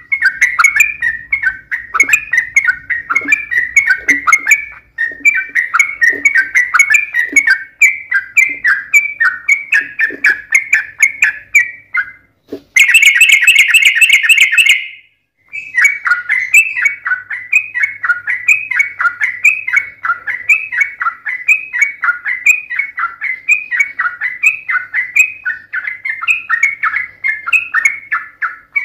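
Yellow-vented bulbul (trucukan) singing a long, fast run of bubbling, chattering notes. About a third of the way through comes a brief gap, then a louder, harsher burst of about two seconds, and after a short silence the rapid chatter resumes.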